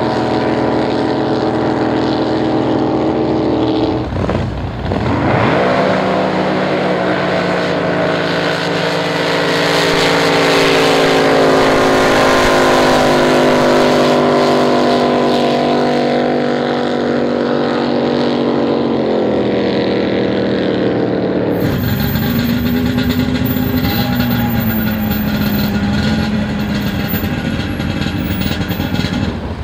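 Drag boat engines running hard at full throttle, a loud steady engine tone that falls in pitch near the end of the run. Past two-thirds of the way in, the sound cuts to a different, lower engine running.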